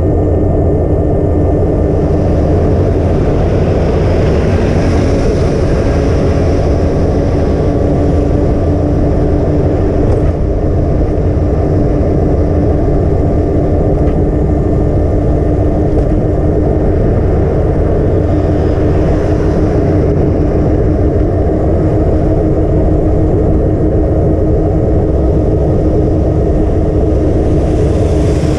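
Truck driving along a street at steady speed: engine and road noise, loud and unbroken, mostly low-pitched, with a steady hum.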